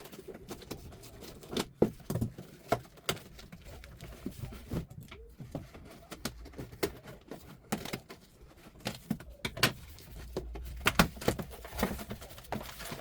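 Packaging being handled and opened by hand: irregular crinkling, rustling and sharp little clicks and taps of plastic and paper.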